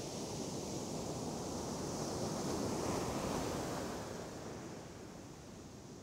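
Sea surf washing on the beach, a steady rush that swells about halfway through and then fades.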